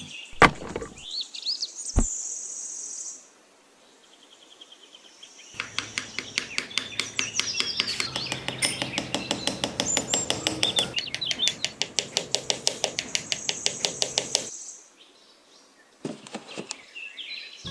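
Small birds chirping, with high gliding calls at first, then after a short pause a fast, even run of repeated chirps lasting about nine seconds.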